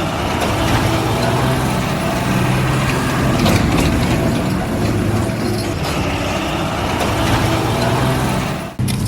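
A heavy vehicle's engine running steadily, with some mechanical clatter on top. The sound breaks off abruptly for a moment near the end.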